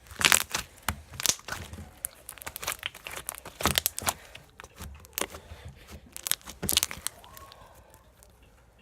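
Glossy slime being squeezed and worked by hand, giving irregular sharp pops and crackles that thin out near the end.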